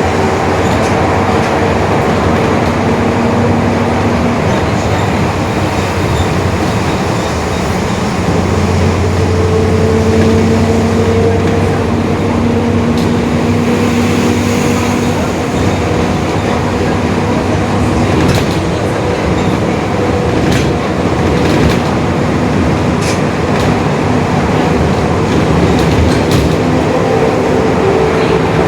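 Mercedes-Benz OF-1721 Bluetec 5 bus running under way, a steady rumble of drivetrain and road noise with the differential growling: a humming whine that comes in and fades out several times, the sign of a noisy, worn differential. A few sharp rattles come in the second half.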